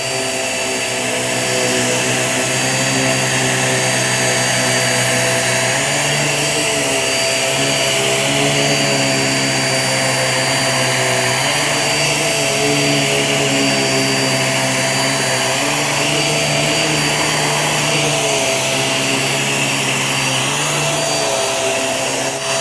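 Hoover React QuickLift upright vacuum running on carpet, its motor and brush roll giving a steady whine over a rush of suction. Its pitch steps down and back up a little every few seconds.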